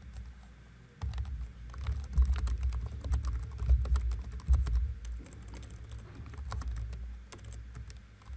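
Typing on a computer keyboard: an irregular run of quick key clicks that starts about a second in.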